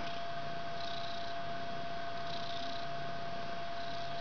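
Mother cat purring while her kittens nurse, over a steady electrical hum and hiss.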